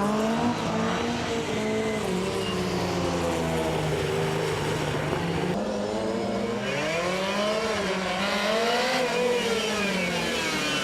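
Classic rally car engines revving hard, their pitch climbing and dropping several times through gear changes, with a strong rise about two-thirds of the way through.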